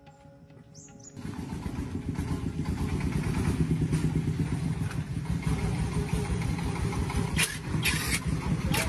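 An engine running with a fast, rough beat, cutting in abruptly about a second in. A few short hissing bursts come near the end.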